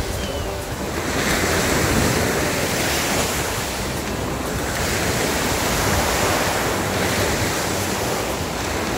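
Sea surf washing onto the shore in a steady rush, with wind buffeting the microphone.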